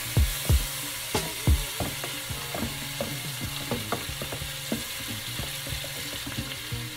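Marinated chicken feet scraped with a wooden spoon into hot curry oil in a pressure-cooker pot, the oil sizzling throughout. A few strong thuds in the first second and a half, then lighter knocks and clicks as the spoon works the pieces out of the plastic tub.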